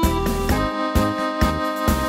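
Tango music on accordion with orchestra: held accordion chords over a bass beat about twice a second.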